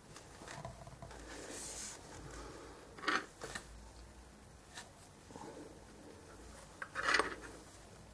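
Faint handling sounds of fine-brush model painting: soft rustles and a few light clicks and taps as the brush is dipped in a small glass jar of paint and the model chassis is handled on a wooden table.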